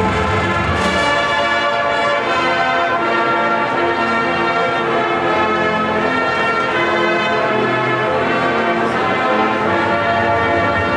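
A marching band playing held brass chords that shift every second or two, at a steady loud level.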